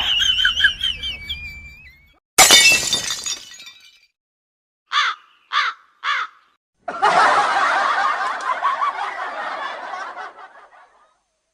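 A string of separate comedy sound effects: a warbling pitched tone that fades out, a sudden loud crash that trails off, three short squeaky chirps, then a longer chattering, rattling noise that slowly fades away.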